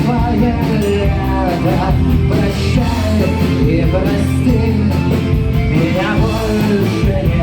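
Rock band playing a song live: electric guitars, bass and drums, with a sung or lead melody over them.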